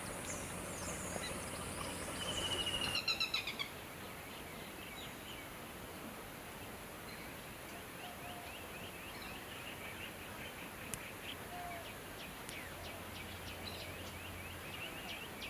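Birds calling: a quick run of repeated notes about three seconds in, then many short high chirps overlapping.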